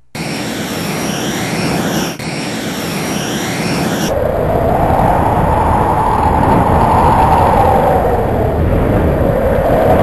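Fighter jet noise: a steady rushing noise with a high steady whine. About four seconds in it changes abruptly to a louder, lower rush of air as the ejection seat fires.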